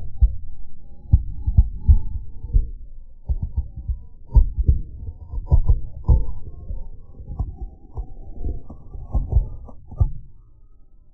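A car tyre rolling over small white cubes and crushing them to powder on asphalt: a run of irregular low thuds and crackles, roughly two a second, that stops near the end.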